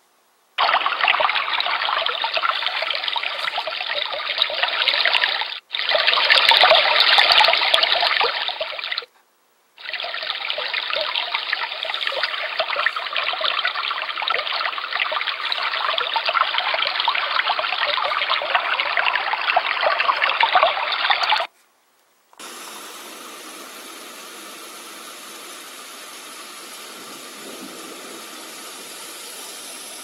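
ANFURIG HFD-600 white noise machine playing its recorded brook sound through its speaker: steady running, babbling stream water that cuts out for under a second about nine seconds in. About twenty-one seconds in the brook sound stops, and a second later a quieter, even hiss takes its place.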